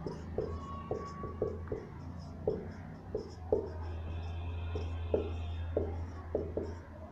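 Marker pen writing on a whiteboard: a run of short, irregular strokes and squeaks, about two or three a second, over a steady low hum.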